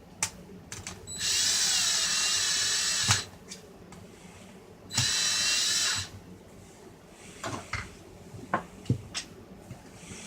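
Cordless drill-driver running in two bursts, about two seconds and then about one second, driving screws into the back of a car radio. Small clicks and taps of parts being handled come between the bursts.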